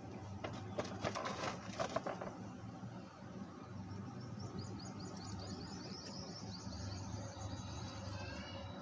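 Rabbits munching on fruit and vegetable scraps, with a run of short crunching clicks in the first two seconds. Small birds chirp in the background from about halfway in.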